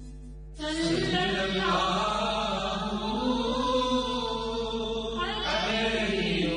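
A voice chanting a devotional nasheed in Kashmiri. One held note fades out, and a new melodic phrase begins about half a second in.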